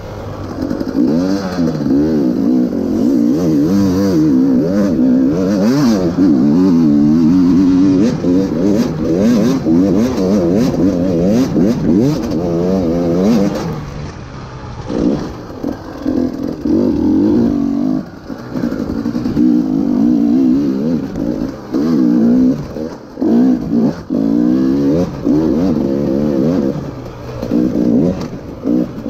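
KTM EXC 300 TPI single-cylinder two-stroke enduro engine under race load, its revs rising and falling constantly as the throttle is worked. The throttle is briefly shut about halfway through and several more times in the second half.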